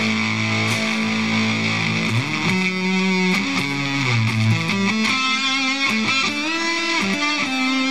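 Stratocaster electric guitar played through a Shrimp Pistol Stun germanium fuzz pedal, giving a thick fuzzed tone. A note rings out held for about two seconds, then a run of shorter notes follows, with some bends.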